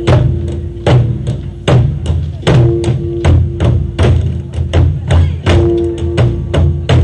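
Korean barrel drums (buk) played by an ensemble in a steady driving rhythm: heavy accented strikes about every 0.8 seconds with lighter strokes between, some strokes leaving a short ringing tone.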